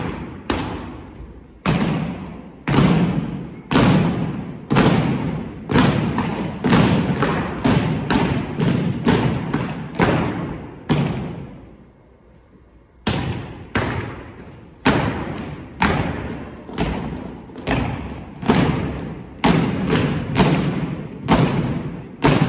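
An unarmed drill team's stomps and slaps struck in unison, in a quick, irregular rhythm, each one echoing in a large gym. The beats come about one to two a second, with a pause of about two seconds midway.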